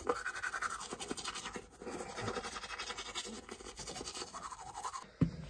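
Manual toothbrush scrubbing teeth in quick back-and-forth strokes. A single thump near the end.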